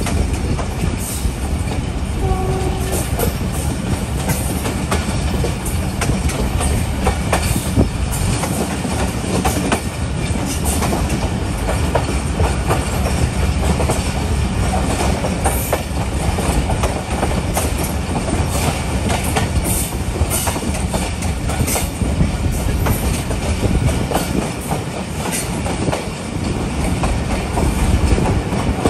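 Passenger train running along the track: a steady rumble of the carriage with wheels clattering over rail joints, full of irregular sharp clicks and knocks.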